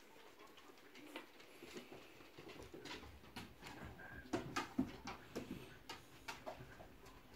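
Border collies' claws clicking and pattering on a bare wooden floor as the dogs move about, with a cluster of louder taps about halfway through.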